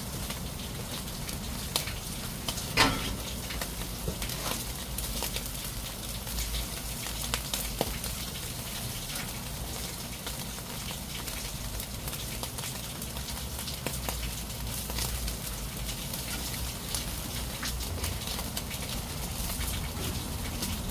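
Eel sizzling on a grill: a steady hiss with frequent sharp crackles and pops, one louder pop about three seconds in.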